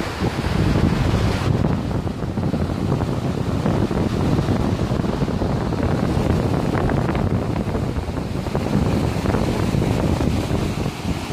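Wind buffeting the microphone in heavy, uneven gusts on a ferry's open deck, over the rushing of the ship's foaming propeller wake.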